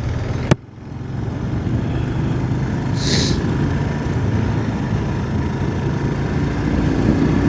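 Kawasaki KLR 650 single-cylinder motorcycle engine running under way, with steady wind and road noise that builds up about a second in after a sharp click. A brief hiss comes about three seconds in.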